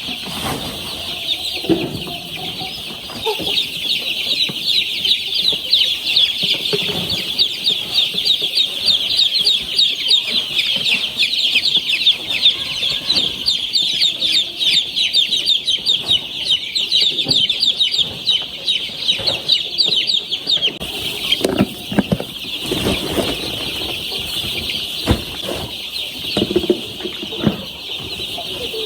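A crowd of young chicks peeping all together, many short high chirps overlapping without a break. Scattered low knocks come in during the second half.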